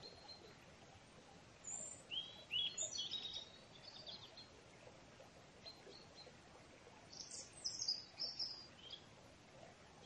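Small songbirds chirping and trilling in two short bursts, about two seconds in and again about seven seconds in, over a faint steady hiss.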